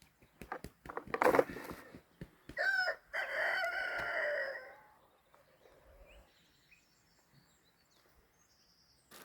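A rooster crowing once, beginning about two and a half seconds in and ending on a long held note, after a few short knocks and rustles.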